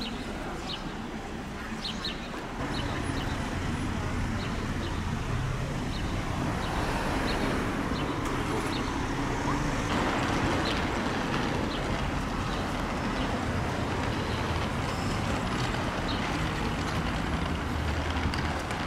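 Street ambience: steady traffic and vehicle engines running, with a few short high chirps in the first couple of seconds. The level steps up about two and a half seconds in.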